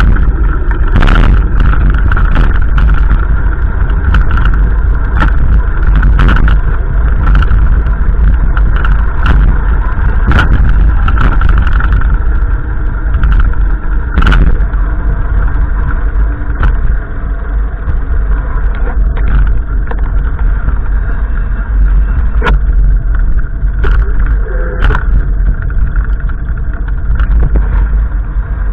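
Strong gusty wind buffeting the microphone: a loud, continuous low rumble broken by frequent sharp pops.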